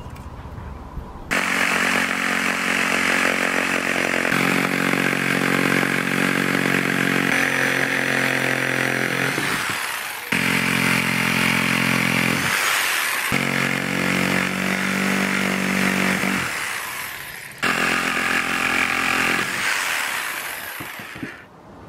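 Corded electric jigsaw cutting a pine board. It starts about a second in, stops briefly and restarts twice, and winds down near the end.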